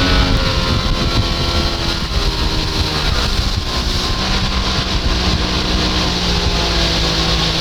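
A 1992 60 hp Johnson two-stroke outboard running with the boat underway, its pitch shifting a few times, with wind buffeting the microphone.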